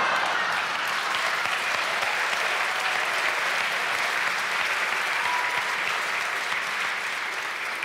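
Studio audience applauding: steady clapping from many hands that eases off slightly near the end.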